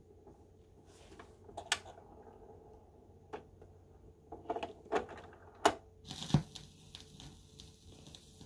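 Turntable tonearm being brought over a spinning 45 rpm single and cued down: a few sharp clicks and knocks from the arm and cueing mechanism, then a low thump about six seconds in as the stylus lands. After that come the hiss and light crackle of the stylus riding the record's lead-in groove.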